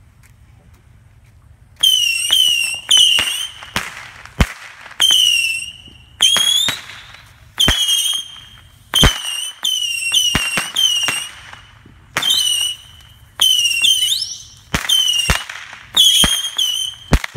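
Consumer fireworks going off in a rapid series, starting about two seconds in: more than a dozen shrill whistles, each wavering slightly in pitch, overlapping with many sharp bangs.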